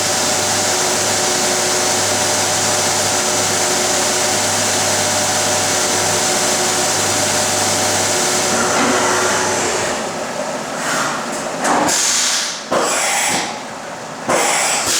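Bridgeport CNC vertical machining center running a cycle: a steady hiss with several steady hums, which drops away about ten seconds in and is followed by four or five short bursts of hiss.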